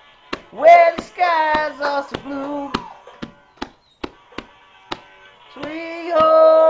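A young girl singing two phrases of long held notes, over sharp clicks that keep a steady beat about twice a second.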